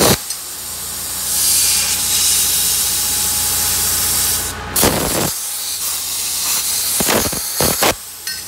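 CNC plasma torch cutting 14-gauge steel at 45 amps: a steady harsh hiss of the arc and cutting air over a low hum. It cuts off briefly a little past halfway, then starts again with loud bursts.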